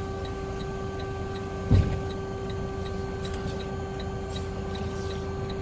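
A semi-truck cab with the truck idling: a steady low hum and rumble with a fast, even light ticking about five times a second, and one dull thump a little under two seconds in.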